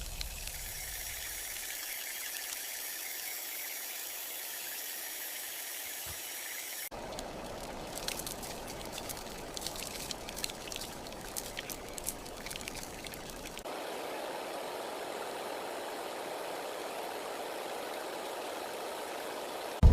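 Steady rushing, hissing noise of flowing water, changing abruptly twice. From about 7 s to about 14 s it carries scattered sharp crackles and pops, like food frying or a wood fire.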